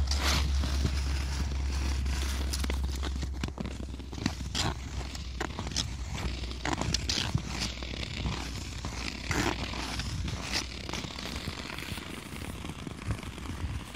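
Ice skate blades scraping and gliding over snow-dusted pond ice, in irregular strokes. A low steady rumble fades out about three and a half seconds in.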